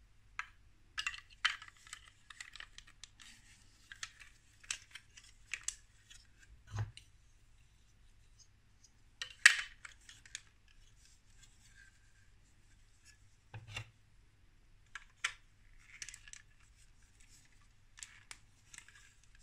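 Plastic Lego Duplo bricks being handled and pressed together: scattered sharp clicks and short rubbing scrapes of plastic on plastic, with the sharpest click about halfway through. Two duller knocks come at about a third and two thirds of the way in.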